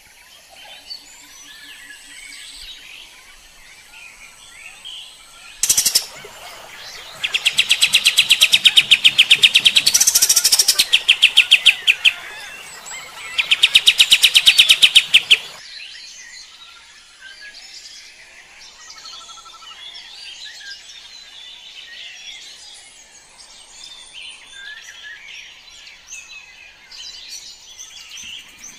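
A kapas tembak singing. Softer chirping gives way, about six seconds in, to two loud runs of rapid repeated notes at about ten a second, each lasting a few seconds, before the soft chirping returns.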